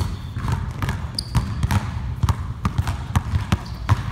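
Several basketballs being dribbled at once on a hardwood gym floor: an irregular, overlapping patter of bounces.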